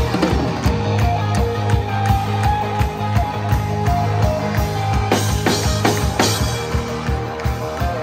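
Live rock band playing: electric guitar and drum kit over a steady beat.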